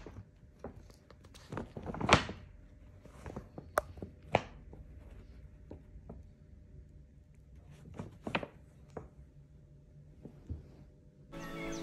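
Irregular soft thumps and crackles of a sheet of painted paper as a cat walks over it and sits down on it. Music comes in just before the end.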